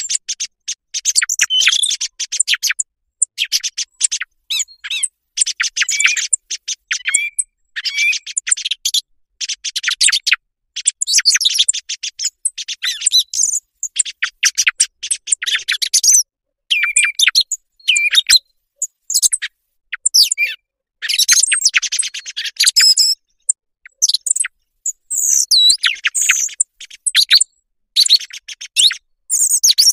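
Recorded song thrush song played as a lure for hunting thrushes: phrases of quick, high chirping notes, one after another, with short silent gaps between them.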